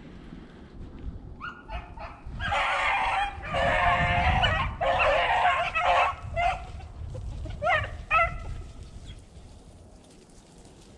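A pack of beagles baying on a rabbit's trail, several voices overlapping for a few seconds, then two single bays near the end. Wind rumbles on the microphone throughout.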